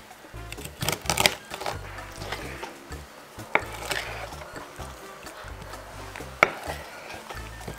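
Kitchen knife cutting through a whole raw chicken on a bamboo cutting board: a quick cluster of knocks about a second in, then two single sharp knocks some three seconds apart, over background music.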